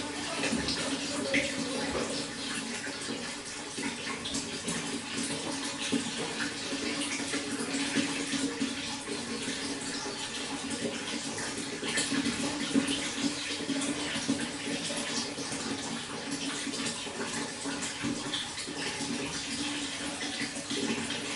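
Running water: a steady rush and splash with many small scattered drips and plinks.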